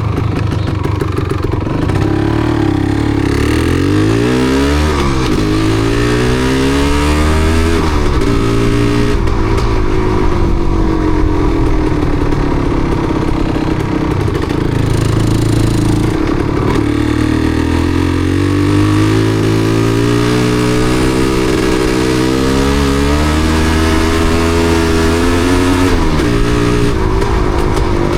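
Yamaha DT250MX single-cylinder two-stroke trail bike being ridden, its engine pitch climbing under acceleration and dropping back several times as it changes gear or eases off. The bike has a misfire.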